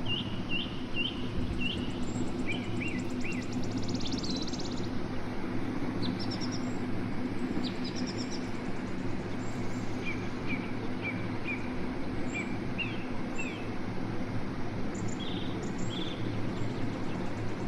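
Songbird calls: runs of short, sharp chirps in small groups, a buzzy trill about four seconds in, and a held whistled note near the end. A steady low hum runs underneath.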